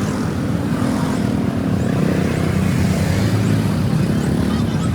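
A vehicle engine running steadily: a low rumble with a wavering pitch.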